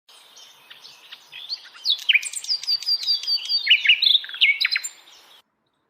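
Parrot chirping: a quick run of high whistled chirps, many sliding downward in pitch. It starts faint, grows louder, and cuts off suddenly shortly before the end.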